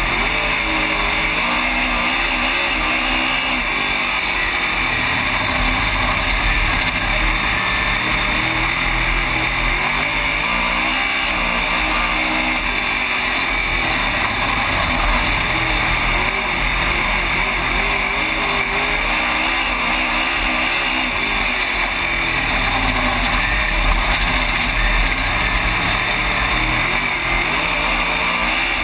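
Race car engine heard from inside the cockpit at racing speed, its pitch climbing and falling over and over as the driver gets on and off the throttle around the track, over a constant rush of wind and road noise.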